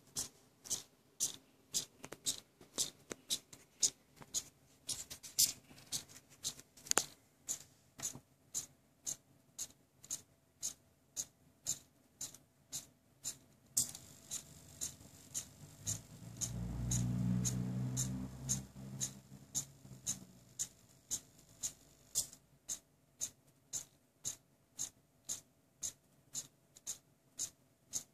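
Small hobby servos on a pan-tilt scanning rig ticking in even steps, about two a second, as they step a temperature sensor across its scan grid. A low rumble swells and fades for a few seconds past the middle.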